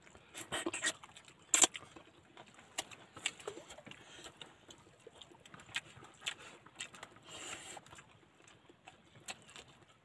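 Close-up eating sounds from a man eating by hand: wet chewing and lip smacks, with scattered sharp clicks as his fingers pick meat from a cooked prawn. A short breathy hiss comes about seven seconds in.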